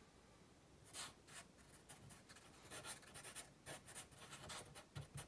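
Faint scratching of a black felt-tip marker on paper: many quick, short strokes, starting about a second in.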